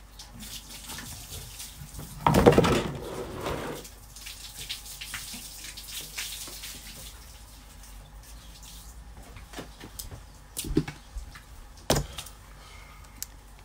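Water running from a garden hose and splashing onto paving, loudest for about a second and a half, a little over two seconds in. A few sharp knocks near the end.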